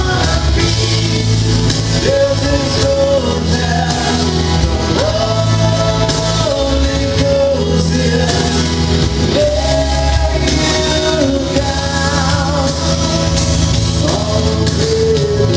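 Live band music with a singer holding long, drawn-out notes over a steady full-band accompaniment.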